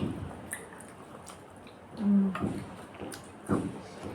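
Eating sounds up close: wet chewing, lip smacks and mouth clicks. There is a short hummed vocal sound about two seconds in.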